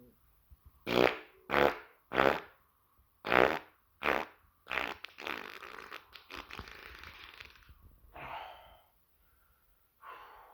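A person farting over and over: six short loud farts in quick succession, then a longer drawn-out rattling one, and two weaker ones near the end.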